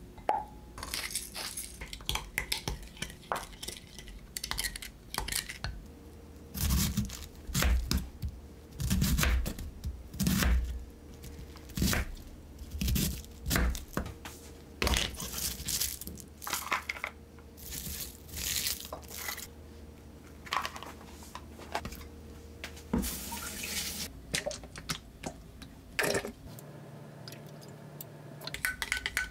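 Kitchen prep sounds: a spoon clinking and stirring sauce in a glass measuring cup, then a knife chopping cabbage on a wooden cutting board in a run of knocks, and near the end oil poured into a nonstick frying pan.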